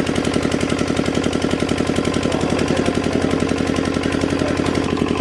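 Small engine-driven water pump running steadily with a fast, even knocking beat as it pumps the pond dry.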